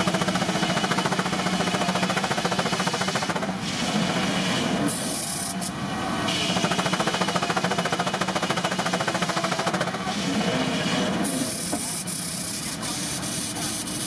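Circular sawmill running, its large blade sawing a log on the moving carriage. It makes a dense, steady mechanical clatter with a high whine, and the tone shifts a few times.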